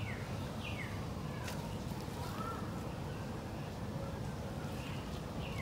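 Background birdsong: a bird gives a few short, falling chirps over a steady low hum of outdoor background noise.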